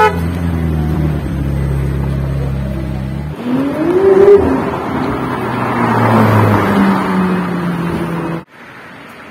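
Orange McLaren's twin-turbo V8 idling close by with a steady low note. Partway through, the sound cuts to the car revving with a rising note and accelerating away, the engine and tyre noise swelling. Near the end it drops suddenly to quieter street traffic.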